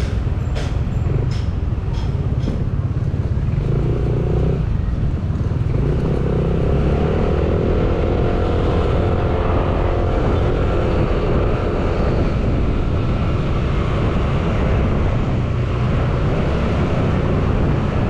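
Motorcycle on the move in road traffic: a steady low rumble of engine and road noise. A few sharp clicks come in the first couple of seconds, and an engine note rises and falls about halfway through.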